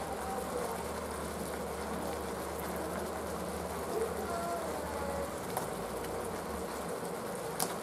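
Tomato and curd masala gravy sizzling gently in a kadai, a steady crackling hiss, with a single soft click near the end.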